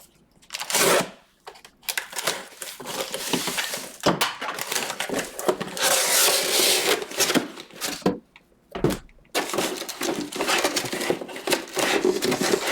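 Plastic wrapping crinkling and tearing in long rustling runs as a sealed trading-card box is opened, with two short pauses.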